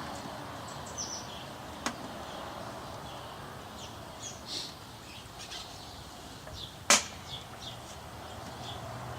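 Small plastic ticks and taps from a car stereo head unit being handled and fitted back together, with a sharp click about two seconds in and a louder one near seven seconds.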